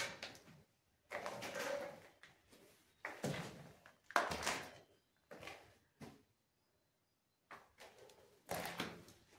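Footsteps scraping and crunching on gritty debris and broken tiles, about one irregular step a second with short silent gaps between them.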